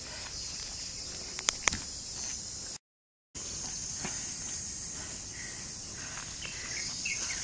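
Steady, high-pitched insect chorus, with two sharp clicks about a second and a half in. The sound drops out for about half a second around three seconds in, then the insects carry on.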